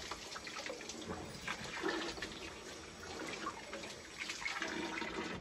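Water trickling and dripping as freshly washed colocasia (taro) leaves are handled, with light patters and clicks throughout.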